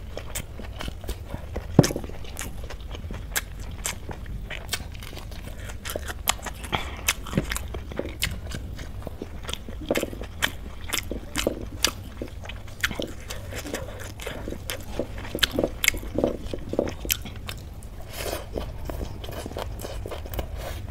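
Close-miked eating sounds: a person chewing rice with curry, greens and raw vegetables eaten by hand, a run of many short wet clicks and crunches. A low steady hum sits underneath.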